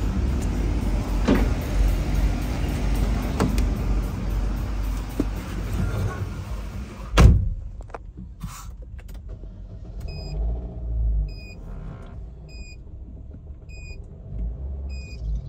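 Chevrolet Cruze 1.8-litre four-cylinder engine idling just after its pump was replaced. A single sharp thump comes about seven seconds in; after it the engine sounds quieter and a short electronic beep repeats about once a second.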